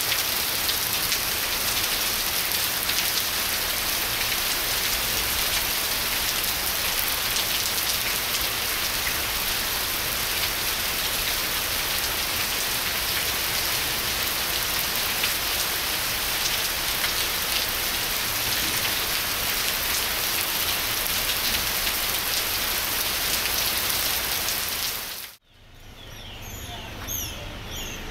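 Steady tropical downpour, heavy rain falling on lawns, paths and palms. Near the end it cuts off abruptly and a few short high chirps are heard.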